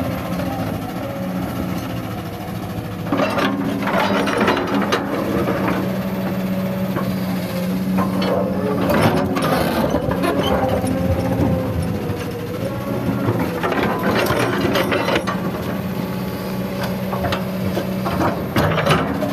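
Hydraulic excavator's diesel engine running steadily while its steel bucket scrapes and clatters through rocky soil in several bouts: a few seconds in, again around nine seconds, around fourteen seconds and near the end.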